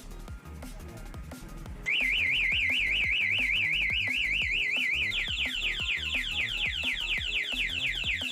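Motorcycle security alarm siren sounding, starting about two seconds in: first a fast up-and-down warble, then switching to quickly repeated rising sweeps. Background music plays underneath.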